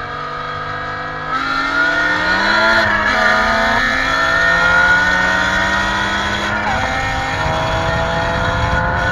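Tuned car engines accelerating hard at highway speed, from a VW Golf GTI Mk7 and a BMW M5 E60 running side by side. The pitch climbs steadily, then drops back at upshifts about three and seven seconds in.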